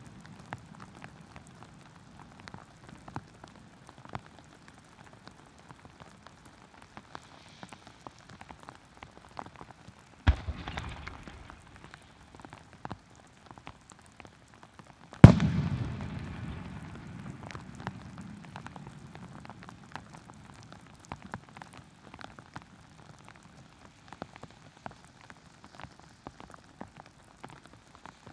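Heavy rain falling, with drops ticking close to the microphone throughout. Two aerial firework shells burst: a sharp bang about ten seconds in with a short rumbling tail, and a much louder boom about fifteen seconds in that rumbles away over a couple of seconds.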